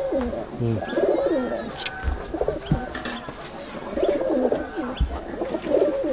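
Domestic Giribaz pigeons cooing in a loft: several low, rolling coos overlapping, repeating throughout. A few soft low thumps come in between.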